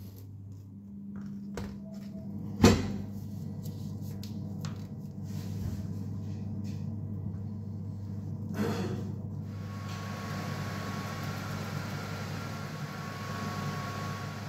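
Kitchen worktop handling: a single sharp knock of something set down on the counter a few seconds in, and a lighter knock later, over a low steady hum. About two-thirds through, a steady whirring hiss with a faint steady tone starts and keeps running, like a kitchen appliance's fan switched on.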